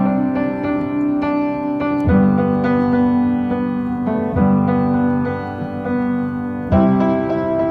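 Background music: a piano playing sustained chords that change about every two seconds, with lighter notes picked out above them.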